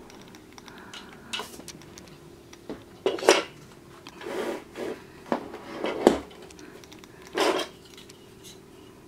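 Handling noise of a DJI Phantom 3 Advanced quadcopter's plastic body and its cardboard packaging as it is lifted out of the box and set on a wooden floor: a string of short knocks, rustles and scrapes at uneven intervals.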